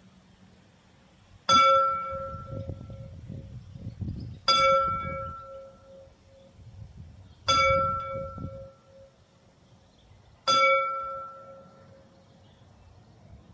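A large bell struck slowly, four strokes about three seconds apart, each ringing out and fading before the next.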